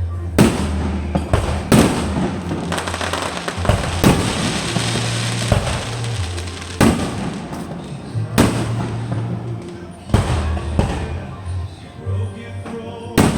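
Fireworks bursting, a sharp bang every one to three seconds, some followed by a crackling tail, over music with a heavy, steady bass line.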